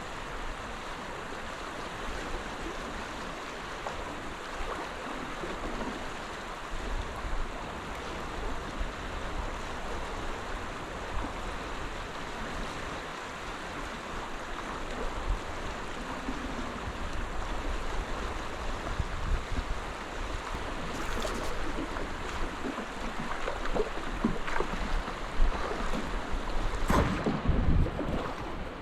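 Steady rush of river water flowing over a shallow riffle, with a few knocks and low rumbles in the last several seconds.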